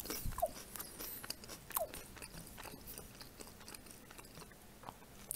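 Faint close-up chewing with scattered soft mouth clicks, from eating fried pelmeni.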